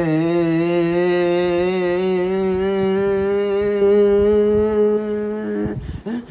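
A man imitating a heavy truck's engine with his voice, as the truck comes down a hill: one long, steady buzzing drone whose pitch creeps slightly upward, breaking off about five and a half seconds in, then a brief short sound near the end.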